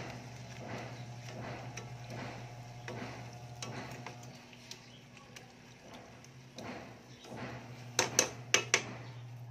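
Spatula stirring and scraping ground pork around a nonstick frying pan in repeated strokes over a steady low hum, then four sharp knocks close together near the end.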